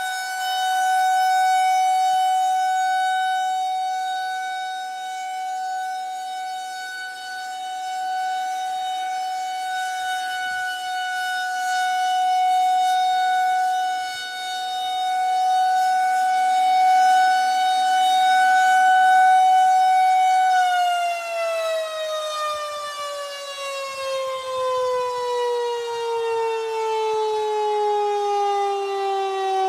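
Federal Signal 2001-130 electromechanical outdoor warning siren sounding a steady alert tone, slowly swelling and fading in loudness. About two-thirds of the way in the power cuts and it winds down, its pitch gliding steadily lower.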